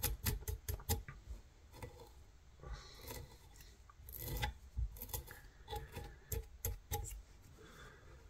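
Velcro dubbing brush raked in quick scratchy strokes through the fly's silver ice dubbing, in several short flurries with pauses between.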